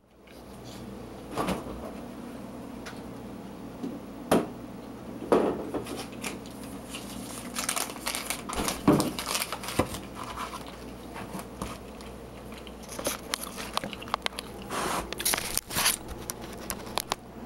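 Hands handling a crusty loaf of homemade bread and crinkling a white wrapper at a kitchen counter: scattered knocks, crackles and rustles, busiest near the end as the camera itself is handled. A low steady hum runs underneath.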